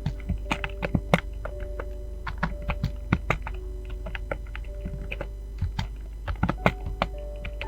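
Fast typing on a computer keyboard: irregular key clicks, several a second, some louder than others, over quiet music with held notes.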